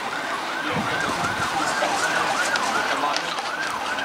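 Emergency vehicle siren on a fast yelp, its pitch rising and falling about two and a half times a second.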